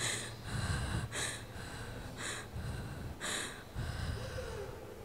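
A girl crying, with a series of short gasping breaths about once a second, picked up close on a handheld microphone.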